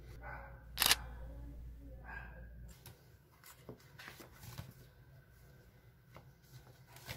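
Quiet handling sounds: soft rustling and one sharp click about a second in while a ceramic dish is handled. After a sudden drop in background hum, a few faint taps and paper sounds follow as a spiral notebook is opened and turned.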